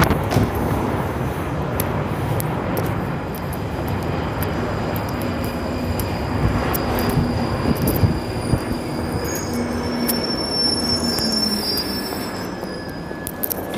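London Underground Northern line train running past the platform with a steady rumble. A high wheel squeal sets in about halfway, and the noise dies down near the end as the train moves away.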